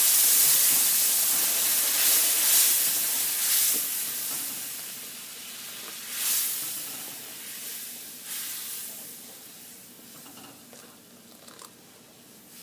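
Hot milk poured into semolina roasted in ghee in a kadai, setting off a loud sizzling hiss that dies away steadily over several seconds, with a few brief swells as the mixture is stirred.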